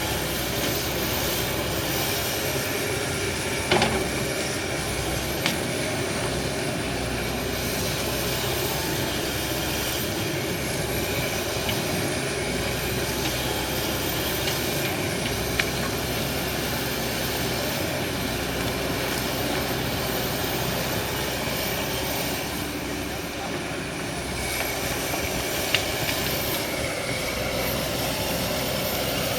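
Excavator running steadily, engine noise holding an even level, with three sharp knocks spread through.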